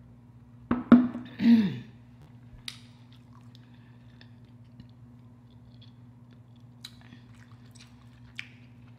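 A gulp and a short breathy throat sound falling in pitch about a second in, as a drink from an insulated water bottle ends, followed by scattered faint mouth clicks and smacks from finger licking, over a steady low hum.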